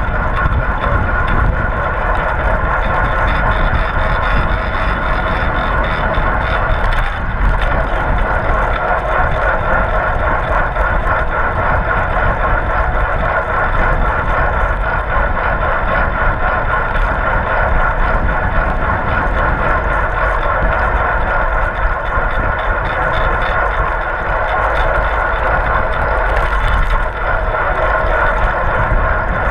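Steady wind rush and buffeting over a bicycle-mounted action camera's microphone at racing speed, with road and bike noise from the fixed-gear bike underneath.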